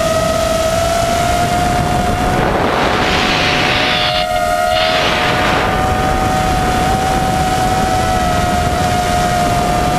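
FPV quadcopter's motors and propellers whining at a steady pitch, heard through its onboard camera, over constant rushing wind noise, with two louder surges of rushing air about three and five seconds in.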